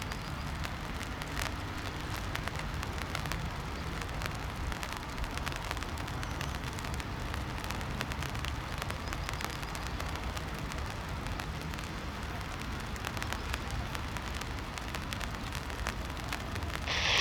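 Steady wind noise on the microphone: a fluctuating low rumble with a scatter of crackles.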